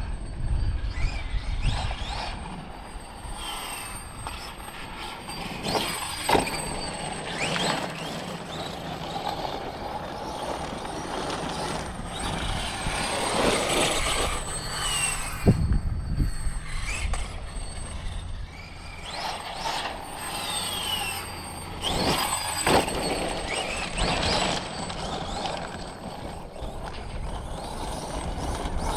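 Losi 5ive TE 3.0 electric 1/5-scale RC truck driving: its brushless motor and drivetrain whine rises and falls in pitch with the throttle over tire noise. A few sharp knocks stand out.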